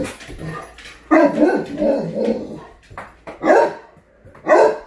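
Dog barking excitedly: a quick run of several barks about a second in, then two single barks near the end.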